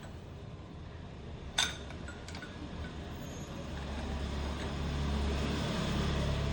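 A sharp metallic clink, then a low engine drone that swells in level from about halfway through.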